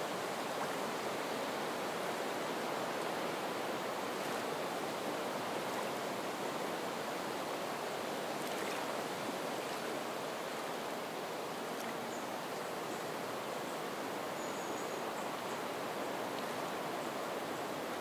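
Soft wind over marsh reed beds and water lapping the shore, an even steady rushing. A few faint short high chirps sound near the end.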